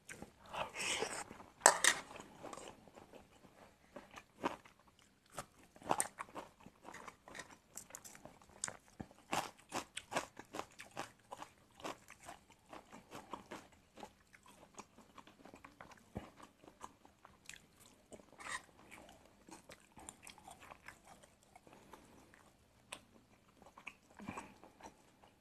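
A person chewing and biting a mouthful of stir-fried angled luffa with egg, close to the microphone: an irregular run of short, sharp crunches and wet mouth clicks.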